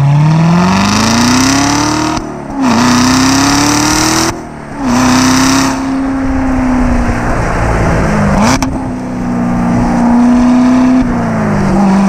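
2019 Chevrolet Corvette ZR1's supercharged 6.2-litre V8 pulling hard through the gears. The revs climb twice, each climb broken by a brief gap for an upshift, about two and four and a half seconds in. The engine then holds steady revs, stepping down slightly twice later on.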